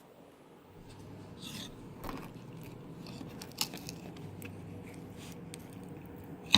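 Small handling noises: scattered short scrapes and clicks, with one sharp click near the end.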